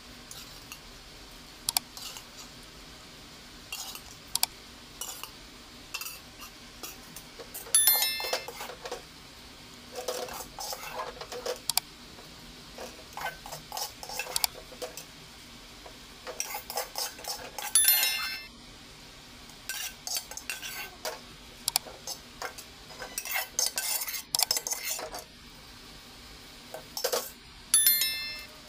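A metal spoon scraping and clinking against a metal pot while rice is layered over chicken, in irregular bursts. There are three louder ringing knocks on the pot: about a third of the way in, past halfway, and near the end.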